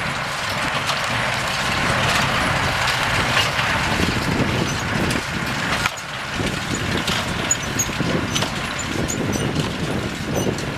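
Farm tractor engine and hay baler running steadily, with irregular knocking from the working machinery.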